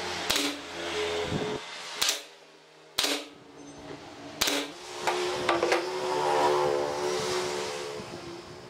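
JOK pneumatic brad nailer firing four sharp shots into pine, about a second apart, each a short crack. A few lighter knocks follow.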